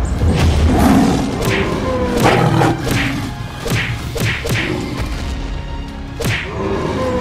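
Cartoon fight sound effects: a series of thuds and whacks as a woolly mammoth strikes a big cat, with one more hit near the end, over background music.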